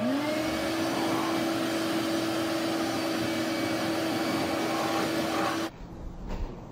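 Wet/dry shop vacuum switched on: its motor spins up over about half a second to a steady whine over a loud rush of air. It stops abruptly near the end.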